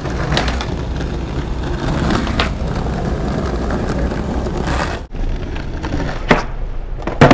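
Skateboard wheels rolling on asphalt with a steady low rumble, broken by several sharp wooden clacks of the deck and tail striking the ground as tricks are popped and landed. The loudest clack comes near the end.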